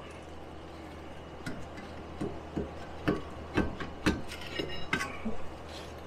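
Light metallic clinks and knocks, about a dozen in a few seconds, as the rear brake caliper is handled and hung out of the way behind the rotor, with a short metallic ring past the middle. A fan hums steadily underneath.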